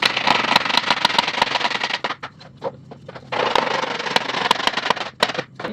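A laminate floor plank being worked into place: a run of quick taps and knocks over a scraping, rubbing noise, breaking off for about a second midway and then going on again.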